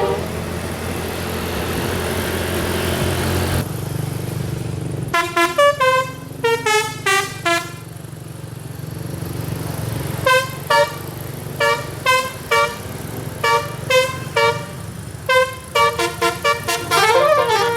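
Bus telolet horn, the Indonesian multi-tone horn, tooting rapid runs of short notes that step down in pitch, over the bus engine running. The first few seconds hold only the engine and road noise. The toots start about five seconds in and come in quick clusters, running into a longer melody near the end.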